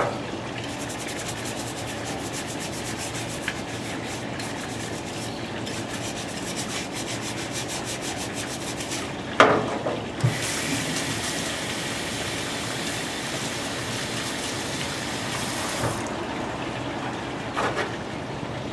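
A brush scrubbing a metal motorcycle engine-mount bracket in degreaser with quick back-and-forth strokes, then a knock about nine seconds in. This is followed by about six seconds of running water as the bracket is rinsed in a stainless steel sink, cutting off suddenly, and a few light clicks near the end.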